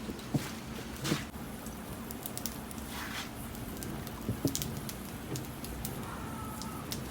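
Wood and charcoal fire crackling, with irregular sharp pops and a couple of duller knocks.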